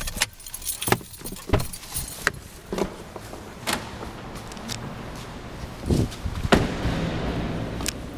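Elevator clicks and clunks: a string of sharp knocks, the loudest about six seconds in, with a rushing noise that swells in the last couple of seconds.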